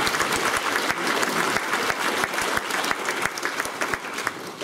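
A large audience of schoolchildren applauding, the clapping thinning out and fading near the end.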